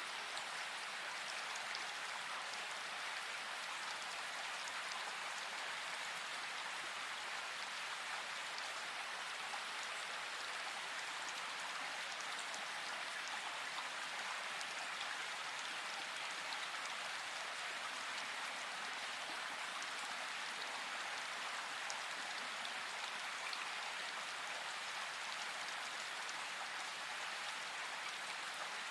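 Steady rain falling in a forest, an even hiss of drops on leaves and the ground with faint scattered patters.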